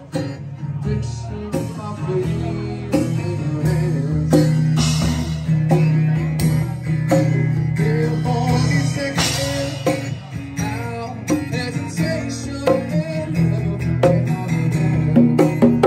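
A live acoustic band: an acoustic guitar with a singing voice over hand-played congas and bongos and cymbal hits. Near the end the drum hits come thick and fast.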